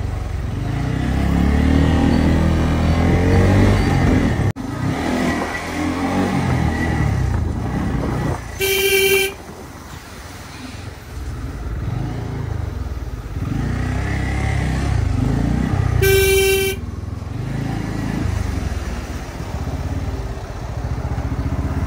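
Motorcycle engine running and varying in speed while riding at low speed through heavy traffic, with wind on the microphone. A vehicle horn toots twice, each toot short and steady: once about nine seconds in and again about seven seconds later.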